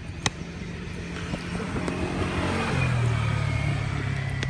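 A motor vehicle passing: its engine hum grows louder to a peak about three seconds in and drops in pitch as it goes by. A single sharp click about a quarter second in.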